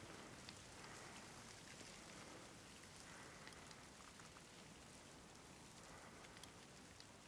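Near silence: a faint steady hiss with scattered faint ticks.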